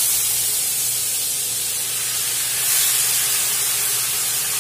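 Cachaça splashed into a very hot disc pan of frying pork belly cubes, hissing loudly as it flashes to steam, with a swell a little under three seconds in. The liquid cools the pan so the torresmo cooks through before it browns.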